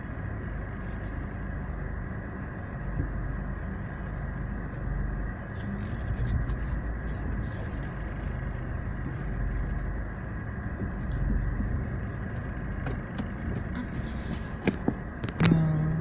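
Steady engine and tyre noise of a car driving, heard from inside the cabin, with a few sharp clicks near the end.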